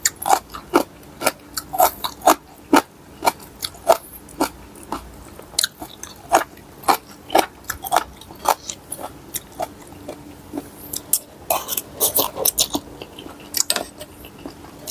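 Pestle pounding in a mortar while papaya salad is being made: uneven, sharp knocks about two a second.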